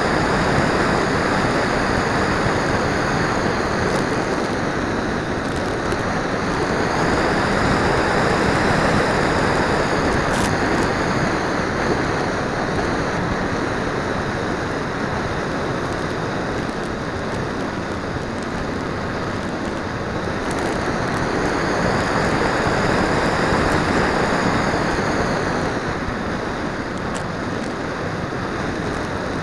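Onboard sound of a radio-controlled flying wing in flight: a steady rush of wind over the small camera's microphone, with a faint high motor-and-propeller whine that rises and falls with throttle. The rush swells and eases every several seconds as the plane speeds up and turns.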